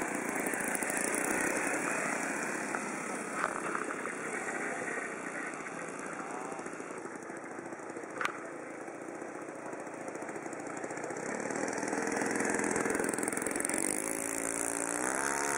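ASP .91 four-stroke glow engine of a radio-controlled P-47 Thunderbolt model running in flight as the plane passes and climbs, its pitch rising near the end. A single sharp click about eight seconds in.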